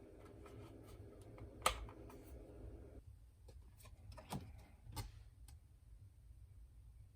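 A few scattered sharp clicks and light knocks from handling the keyboard and its packaging, the loudest about one and a half seconds in and two more a little past the middle, over faint small ticks; a low steady hum stops about three seconds in.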